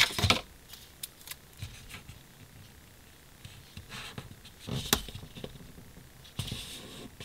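Quiet paper handling: a planner page being slid across a desk and a sticker pressed down onto it, heard as soft rustles and a few light clicks, the strongest about five seconds in.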